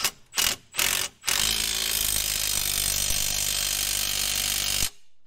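Handheld power tool driving a bolt: three short bursts, then a steady run of about three and a half seconds that stops abruptly.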